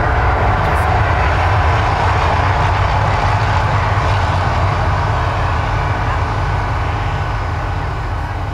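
Mirage volcano attraction erupting: a loud, deep, steady rumble that slowly fades near the end as the eruption dies down.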